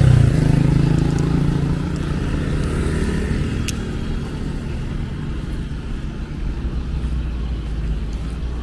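A car drives past close by, its engine and tyres loudest at the start and fading away, then a motorcycle rides by over a steady low traffic rumble.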